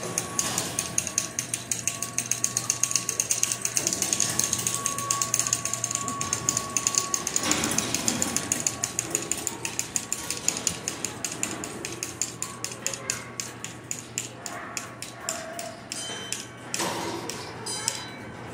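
Archimedean Excogitation audiokinetic rolling ball sculpture running: balls and machinery clatter through its metal tracks in a fast, even, ratchet-like run of clicks and rattles. A steady high tone sounds through the first half, and a few short ringing tones come near the end.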